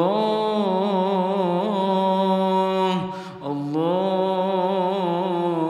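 A solo voice chanting the word 'Allah' of a dua in two long, drawn-out melodic phrases with a wavering ornamented line, the second beginning about three and a half seconds in.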